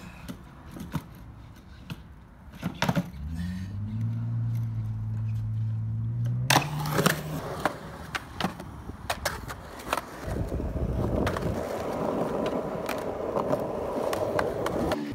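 Skateboard on concrete: clacks and knocks of the board and wheels hitting a concrete ditch bank, with one sharp, loud smack about six and a half seconds in. It ends with a steady rumble of the wheels rolling over rough concrete. A low droning hum is heard for a few seconds before the loud smack.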